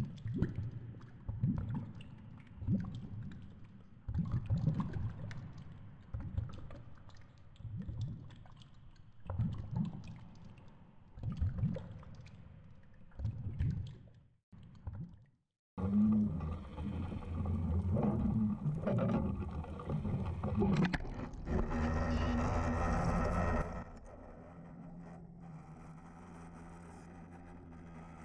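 Underwater sound from a camera housing on a fishing line. First comes slowed-down water noise as irregular low rumbles. After a break about 16 seconds in, there is a steady drone with a constant pitched hum, which drops to a quieter hum about 24 seconds in.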